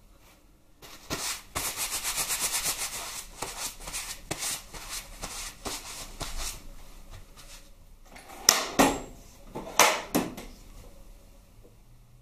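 Metal hand tools rattling and scraping on a workbench, then two sharp metal clanks about a second and a half apart near the end.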